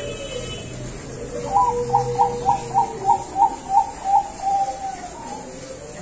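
Zebra dove (Bangkok-bred perkutut) singing: a quick run of about nine short cooing notes, roughly three a second, ending in a longer drawn-out note.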